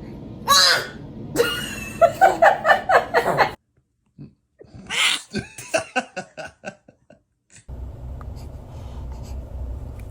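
Two sneezes, each followed by a quick run of laughter, with a sudden break into silence between them.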